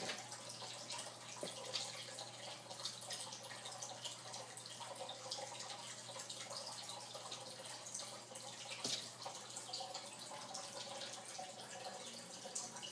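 Light, scattered taps and ticks of a cat's paws and claws on a hardwood floor as it pounces on and bats at a rubber band, with a sharper tap about 2 s in and another about 9 s in. Underneath is a faint steady hiss and a low hum.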